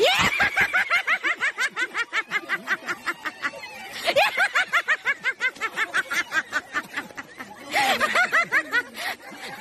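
Rapid, high-pitched snickering laughter, a quick run of short pulses about six a second, coming in three bouts: at the start, about four seconds in, and near the end.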